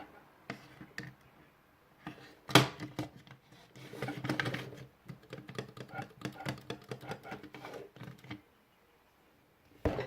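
Small hard plastic parts clicking and knocking as a computer mouse is handled and taken apart. There is one sharper knock about two and a half seconds in, then a quick run of light clicks and taps.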